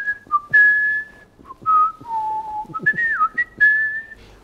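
A man whistling a tune through pursed lips: a string of clear single notes, some held for about half a second, with one note sliding down about three seconds in.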